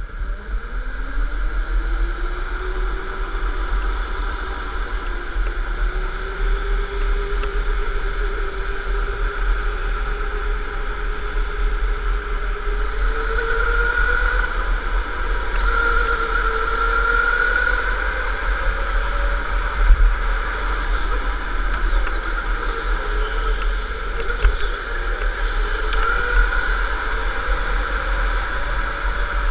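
Electric indoor go-kart's motor whine, heard from the driver's seat: it rises in pitch over the first few seconds as the kart pulls away, then holds high, wavering up and down with speed, over a steady low rumble. A brief knock comes about twenty seconds in.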